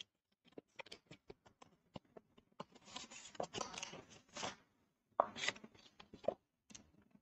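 Cardboard earphone box being opened by hand: a few soft taps and clicks, then the inner tray sliding out of its card sleeve with a papery rubbing lasting about two seconds, then a couple of sharper knocks of card as the two parts come apart.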